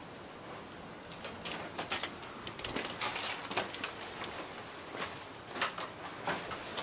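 Footsteps and creaks on a slatted longhouse floor: irregular knocks and clicks, several a second at times, as someone walks across it.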